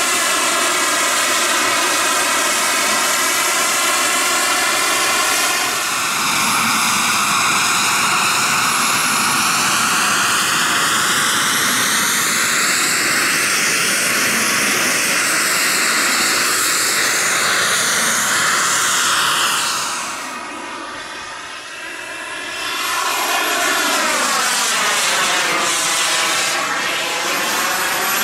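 Model jet turbine (ENJET E160) of an RC J-10B jet running at high power: a continuous whine with a rush of air, its tone sweeping up and down as the jet climbs, hangs and passes. About two-thirds of the way through it grows quieter for a couple of seconds, then swells again.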